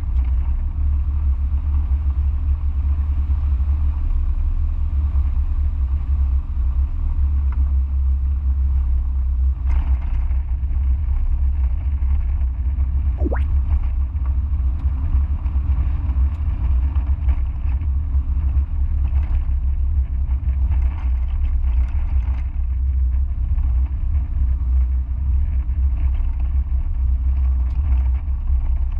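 Onboard driving noise in a Mazda MX-5: a steady low rumble of engine, tyres and wind, with one short rising squeak about halfway through.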